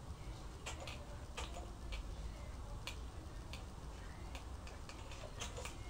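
Marker writing on a whiteboard: faint, irregularly spaced ticks and scratches as the tip touches down and moves across the board.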